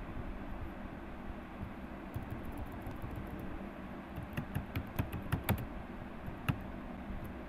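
Typing on a computer keyboard: a run of quick key clicks starting about two seconds in, loudest near the end, over a steady low hum.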